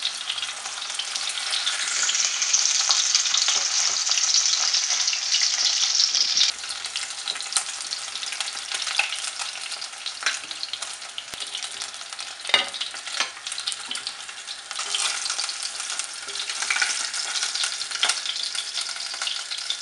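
Rohu fish pieces sizzling and crackling as they shallow-fry in hot oil in a nonstick pan, turned over with a slotted wooden spatula. The sizzle is loudest for a few seconds near the start, and a single sharp knock comes about halfway through.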